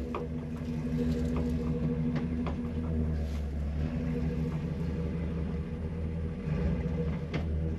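Pickup truck engine running at a low, steady idle while the truck backs slowly up to a camper's coupler, with a few faint clicks.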